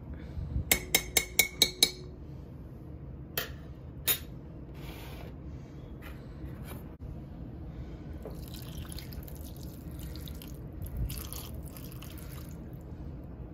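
A metal spoon tapped quickly about seven times against the slow-cooker crock, with a short ring, then two single clicks. In the second half, water poured from a cup runs and splashes into the crock over the raw chicken.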